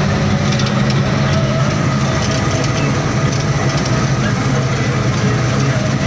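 Combine harvester running while it cuts a standing crop, heard from inside the cab: a loud, steady engine and machinery drone.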